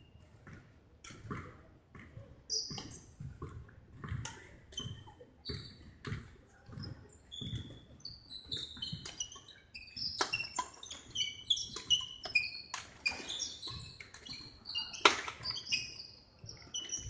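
Badminton players' court shoes squeaking on a wooden sports-hall floor in many short, high chirps, growing dense from about eight seconds in. Low footfall thuds and sharp racket hits on the shuttlecock mix in.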